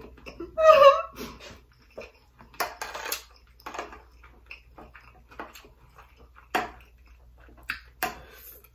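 A spoon scraping and clicking against a plate as rice and sauce are scooped up, in scattered short strokes. A brief loud vocal sound comes about a second in.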